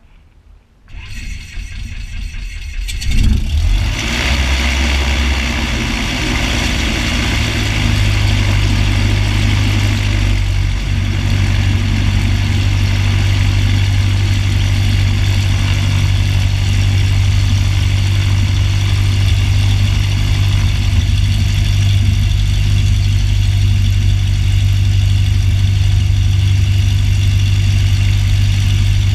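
Cessna 152's four-cylinder Lycoming O-235 piston engine being started: the starter turns it over for about two seconds, it catches about three seconds in, then settles into a steady low-power run with a deep hum.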